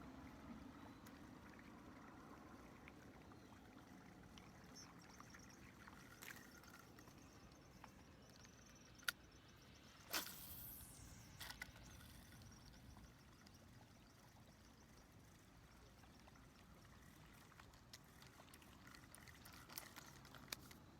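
Mostly near silence with a faint steady background hiss. About nine seconds in comes a sharp click, then a quick whoosh that falls sharply in pitch, typical of a spinning rod being cast, followed by a few small ticks.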